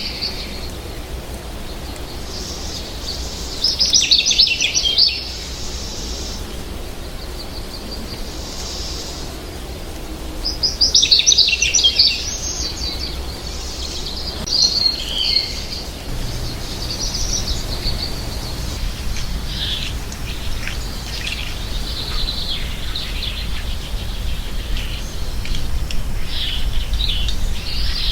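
American goldfinch singing: bursts of rapid, high twittering song, loudest about four and eleven seconds in, with shorter, softer chirps and twitters in between and through the second half. A steady low rumble lies beneath.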